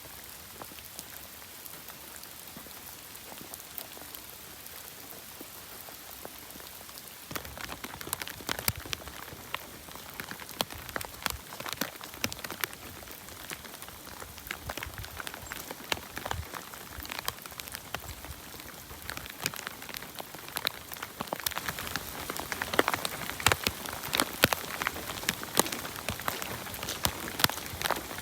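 Rain falling: a steady hiss at first, then from about seven seconds in, sharp drops tapping on a surface, heavier and more frequent near the end.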